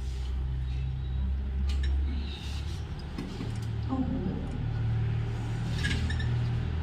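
A low, steady droning hum that shifts in pitch about halfway through, with a few faint clicks over it.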